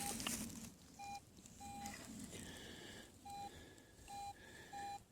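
Garrett AT Pro metal detector giving short, faint, repeated beeps at one pitch, with fainter higher tones between them, as it is swept over a freshly dug target that reads a target ID of about 85 to 87.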